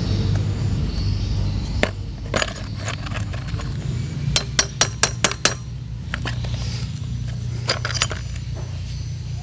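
Small metal parts clinking and tapping against each other, a few single clinks and then a quick run of about six in a row, over a steady low hum.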